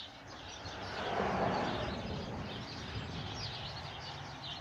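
Small birds chirping repeatedly over steady outdoor background noise, with a broad whoosh of noise swelling up about a second in and fading again.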